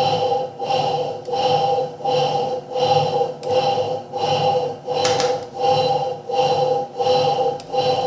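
Electrolux Turbo Limpeza top-load washing machine agitating, its motor humming in pulses about one and a half times a second as it drives the agitator back and forth. The noise comes from a worn bearing inside the motor's aluminium housing under the pulley, not from the gearbox.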